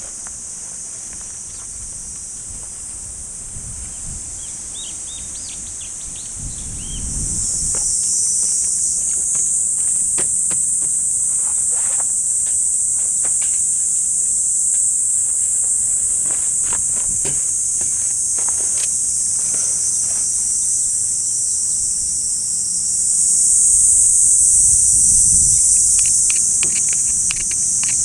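Steady high-pitched chorus of summer insects, getting louder about seven seconds in and again near the end, with a few short chirps early on and scattered light clicks and knocks.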